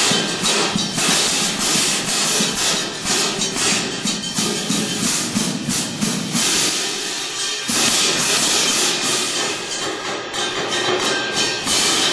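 Drum corps cymbal line playing an ensemble piece on hand cymbals: rapid rhythmic crashes, sizzles and scrapes layered across the section. There is a short dip about two-thirds of the way in, then a loud full-section crash.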